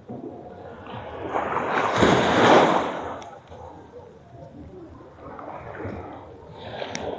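Small waves washing up on a beach: one wash swells to its loudest about two seconds in and draws back, and a smaller one follows near the end.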